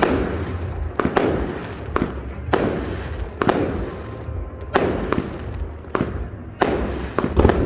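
Aerial fireworks bursting: about a dozen sharp bangs in irregular succession, sometimes two close together, each with a short tail after it.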